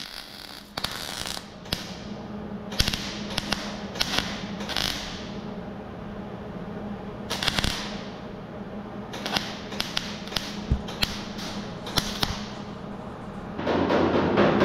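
MIG welder crackling in short bursts, several seconds apart, as plug welds on a steel quarter-panel seam are welded solid; a steady low hum runs underneath. Near the end a louder, denser rush of noise comes in.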